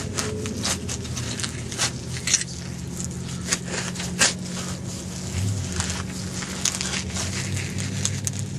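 A digging tool cutting into rocky soil: irregular scrapes and crunches of dirt and stones.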